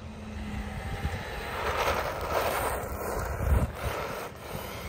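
Arrma Typhon Grom RC car with its small 380 electric motor driving across asphalt, a whir of motor and tyres that builds from about a second in, is loudest around three and a half seconds, and fades near the end.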